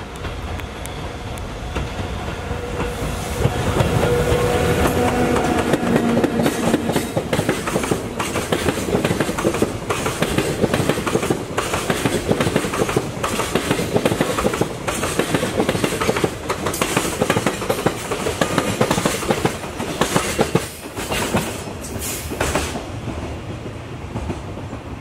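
Electric freight train passing: the sound swells as the locomotive goes by about four seconds in, then the long string of freight wagons clatters over the rail joints in a rapid, regular clickety-clack that thins out near the end as the last wagons pass.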